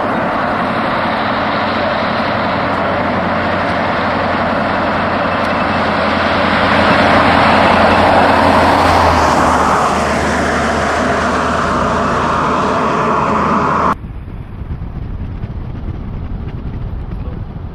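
Lexington Class C motorhome driving past on the highway: its tyre and engine noise swells as it comes close and eases off as it goes by. About fourteen seconds in it cuts off abruptly, leaving a quieter steady wind rush.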